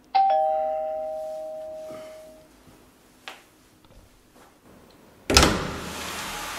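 Two-note ding-dong doorbell chime, a higher note then a lower one, ringing out for about two seconds. A short click follows about three seconds in. Near the end a sudden loud burst of noise settles into a steady hiss.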